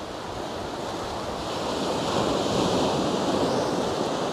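Small sea waves washing in over a rocky shore: a steady rush of surf that swells about two seconds in and then eases off.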